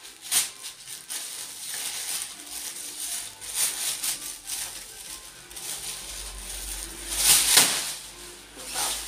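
Thin plastic carrier bag rustling and crinkling as it is opened out and handled, in irregular bursts, the loudest a little past seven seconds in.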